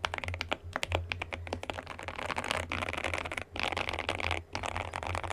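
Mechanical keyboard being typed on quickly: a KBDfans KBD67 Lite with lubed Gateron Yellow Pro linear switches and Cherry-profile dye-sub keycaps, a fast run of keystrokes broken by two short pauses in the second half. A steady low hum runs underneath.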